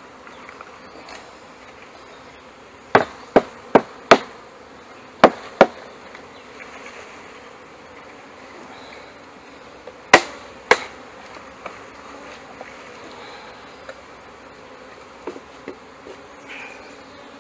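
Honeybees buzzing steadily around an open hive, broken by sharp knocks on a wooden package-bee box: four quick knocks about three seconds in, two more about two seconds later, and two near the ten-second mark. The box is being rapped while held upside down over the hive to shake the last bees out.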